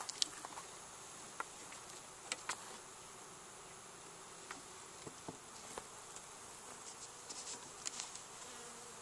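Honeybees buzzing faintly around an open hive, with scattered light clicks and taps as a plastic pail feeder is handled and set upside down on the wooden inner cover.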